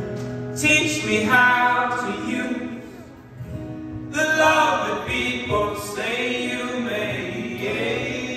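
Live band with acoustic guitar, cello and upright bass playing while male voices sing together in two phrases, with a brief softer gap about three seconds in.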